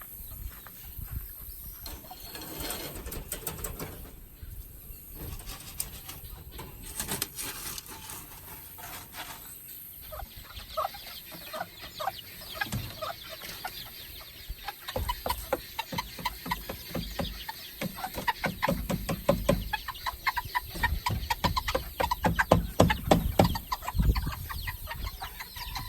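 Chickens clucking, their short calls sparse at first and coming thick and fast in the second half.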